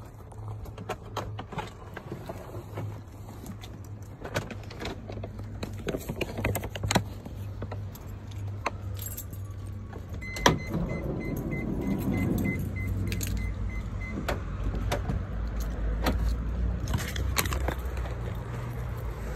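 Light metallic jingling and clicking over the low hum of a car engine running. About halfway through, a run of short high beeps goes on for about four seconds.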